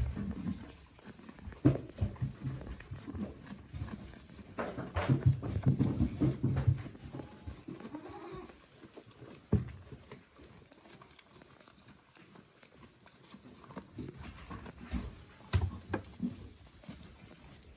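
Goats bleating on and off, most about five to seven seconds in, with a few sharp knocks in between.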